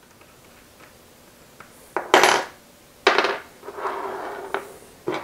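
Metal clinks and clanks as a steel self-centering four-jaw chuck is taken apart on a wooden bench, its parts, screws and hex keys knocking together. Sharp ringing knocks come about two and three seconds in, with a rattling scrape around four seconds and another knock near the end.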